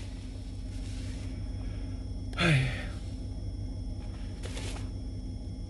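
A man's sigh, a short breathy sound falling in pitch, about two and a half seconds in, over the steady low rumble of a vehicle cab.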